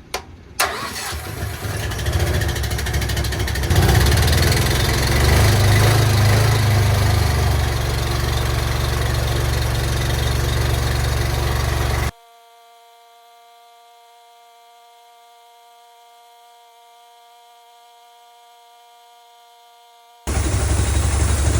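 An engine is started with a click and catches, running and building up over the first few seconds. It stops abruptly past the middle, leaving a faint steady hum, and the engine sound returns near the end.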